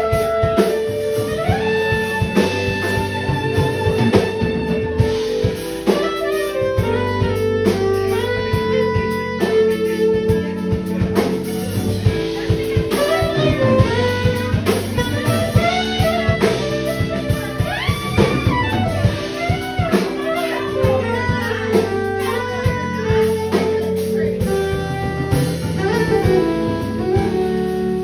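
Live jazz band: a soprano saxophone plays a melodic lead line of quick runs and held notes over electric guitar and drums.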